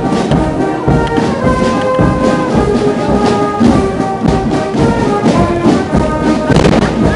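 Marching brass band playing a tune in the street procession, with held brass notes over drum beats.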